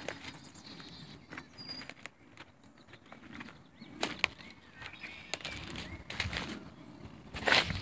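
Footsteps crunching and rustling through dry fallen leaves and twigs, irregular, with the loudest crunch near the end.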